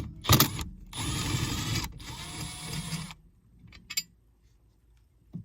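Cordless drill-driver running in two short bursts as it backs out a Torx screw from a car's under-dash metal panel, with a few sharp clicks of the bit and screw before it and a single click about four seconds in.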